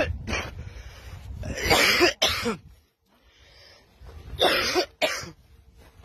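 Two short, harsh vocal bursts from a man, like coughs or hard breaths, about one and a half and four and a half seconds in. A low rumble of microphone handling or wind runs beneath them.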